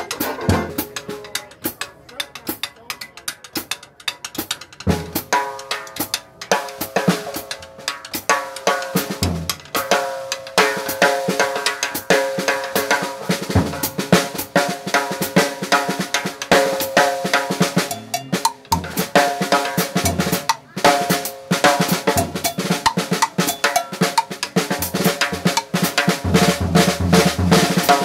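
Dixieland jazz band playing with the drum kit close by. The drummer's snare and cymbal strokes are loudest, over the trombone and other horns, and the band fills in and grows louder a few seconds in.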